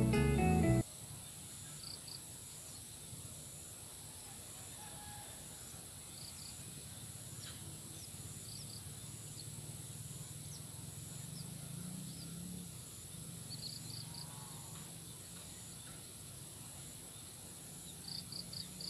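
Background music cuts off about a second in, leaving outdoor ambience: a steady high-pitched insect drone, like crickets or cicadas, with short paired chirps every few seconds and a faint low rumble.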